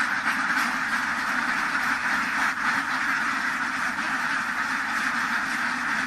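A large flock of domestic ducks quacking all together, a steady chorus of overlapping quacks.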